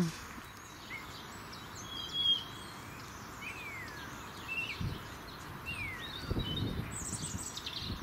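Wild songbirds calling over a steady outdoor hiss: a few short high chirps, two clear whistles sliding downward in pitch, and a burst of high chatter near the end. A couple of brief low thumps come about two-thirds of the way in.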